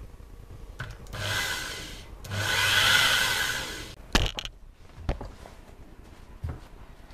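Power drill with a hole saw run in two short bursts of about a second each, whining up and winding down. A sharp knock follows about four seconds in, then a couple of softer knocks.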